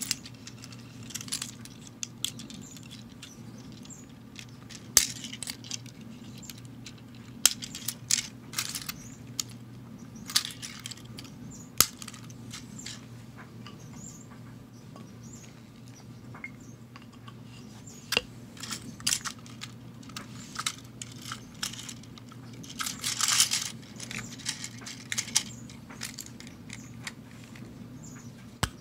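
Scattered clicks and short clatters of plastic Plarail toy train cars being handled and set on the track, over a steady low hum.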